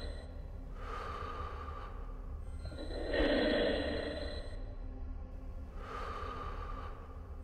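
Darth Vader's mechanical respirator breathing through the mask: three slow breaths, one every two to three seconds, over a steady low hum.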